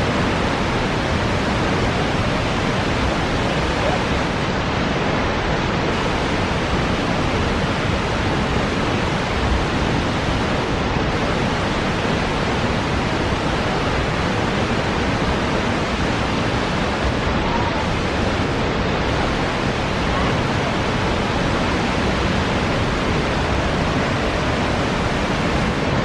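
Reichenbach Falls, a large alpine waterfall, heard close up: the water plunging down makes a loud, steady rushing noise.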